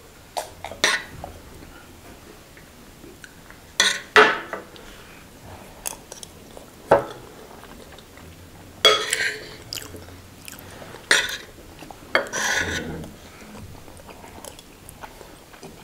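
Eating sounds: close-up chewing and mouth noises, with metal cutlery clinking and scraping on ceramic plates now and then. These come as short, separate sounds scattered every second or two.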